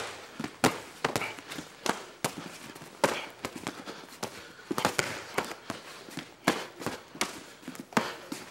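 Kicks and strikes landing on boxing gloves, shin guards and bodies during Muay Thai sparring: a dozen or so sharp smacks at irregular intervals, with bare feet shuffling on the mat between them.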